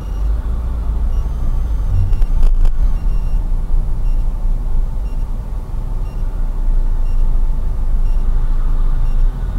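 Steady low engine and road rumble of a car driving in traffic, heard from inside the cabin through a dashcam microphone.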